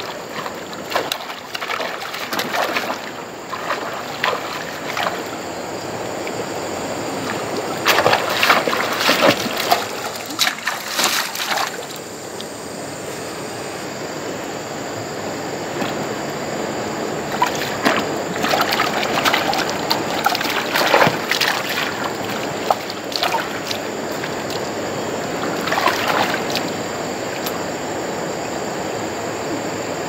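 Shallow water sloshing and splashing over a steady wash of running water, with bursts of louder splashing about eight to eleven seconds in, around twenty seconds and again near twenty-six seconds.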